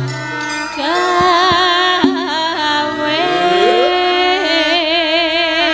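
Javanese gamelan music with a sinden singing long, wavering held notes. A few sharp drum strokes come in the first couple of seconds.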